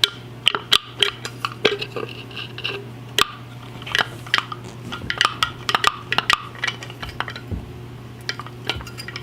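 Irregular metallic clicks and clinks from an antique Automobile Supply Mfg. Co. 'Handphone' push horn being handled, its plunger pressed and adjustment knob worked, without the horn sounding: its vibrating plate is out of adjustment and not working well.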